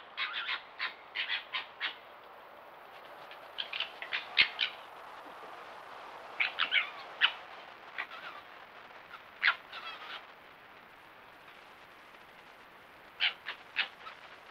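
Red foxes calling while they play: short, sharp, high yelps and chatters in five quick bursts of several calls each, over a steady hiss.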